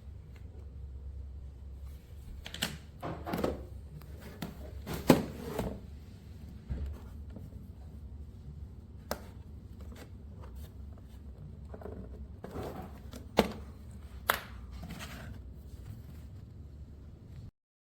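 Scattered clicks and knocks of objects being handled, the loudest about five seconds in and a pair near the end, over a low steady rumble; the sound cuts off suddenly just before the end.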